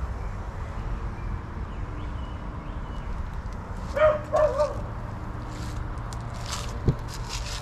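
A dog gives two short, high yelps about four seconds in, over a steady low rumble, with a single sharp knock near the end.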